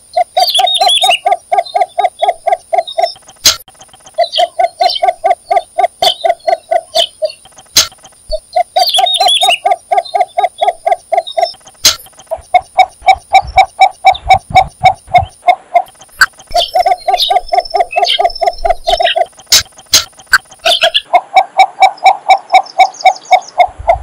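Cinnamon bittern calling: six bouts of rapid, evenly repeated notes, about five a second, each bout lasting two to three seconds with short pauses between.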